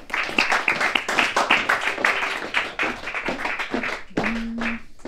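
A small group clapping in welcome, thinning out after about four seconds, with a voice holding a note near the end.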